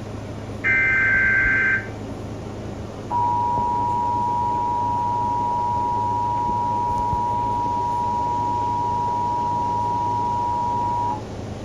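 Emergency Alert System SAME header: a burst of data tones at about a second in. About two seconds later the EAS two-tone attention signal begins, two steady tones sounded together for about eight seconds, and cuts off just before the end. Together they mark the start of a broadcast alert, here a coastal flood warning, over a low background hum.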